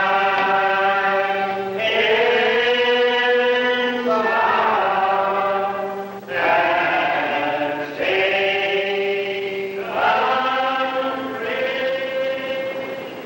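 Slow, drawn-out singing: long held notes that slide from one to the next, in phrases of about two seconds each, dying away at the end.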